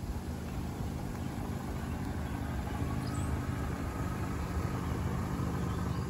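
Toyota RAV4's engine running at low speed: a steady low hum that grows slightly louder.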